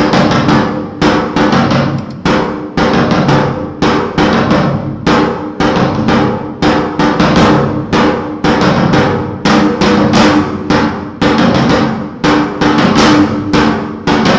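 Background music driven by a drum kit: bass drum and snare playing a steady beat of about two hits a second over a held low tone.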